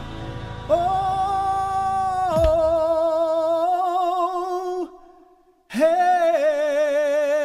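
A solo voice singing long, wordless held notes with vibrato in a worship song. The backing drops away partway through, then there is a brief break about five seconds in before the voice comes back on a new held note.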